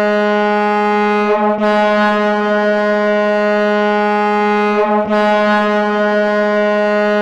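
Hockey arena goal horn of the Albany Devils (2012-13 AHL season) blowing one steady tone, held in long blasts broken by two brief dips about one and a half and five seconds in.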